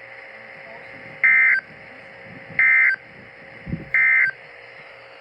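Emergency Alert System SAME digital data tones: three short, harsh bursts about a second and a half apart, the end-of-message code that closes the broadcast flash flood warning.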